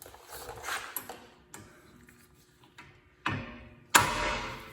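Two hammer blows on a hand impact driver set in the Phillips-head rotor retaining screw, the second louder and ringing as it dies away; light clicks of tool handling come before them.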